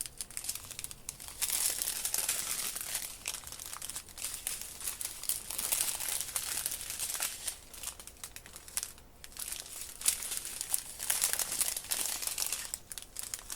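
Small plastic bags of diamond-painting drills being handled and turned over, crinkling in bursts with short pauses between.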